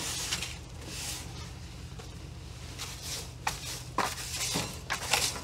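Hand brush sweeping dirt and debris out of a corner in short scratchy strokes, about eight of them, over a low steady hum.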